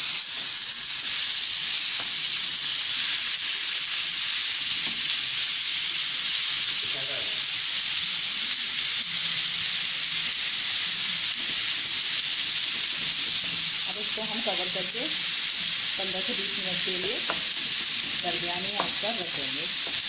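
Marinated minced meat sizzling steadily as it fries in hot oil in a nonstick pan, stirred with a wooden spoon.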